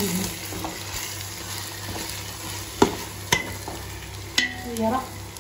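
Prawns sizzling and frying in a pot of onion-tomato masala as they are stirred. A metal stirring spoon knocks against the pot three times in the second half, the pot ringing briefly after the later knocks.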